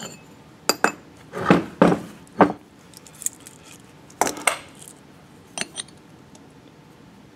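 Steel tapered roller bearing cones and races clinking and knocking against each other and the workbench as they are handled and set down. The knocks come in short clusters, the loudest in the first two and a half seconds and a last pair near six seconds.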